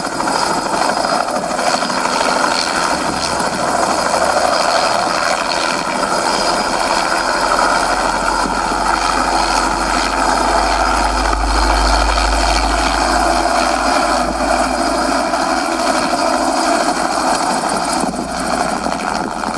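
A 700-size radio-controlled Bell JetRanger scale model helicopter running steadily, its rotor noise mixed with a turbine-like sound effect. A deep rumble swells in the middle and then fades.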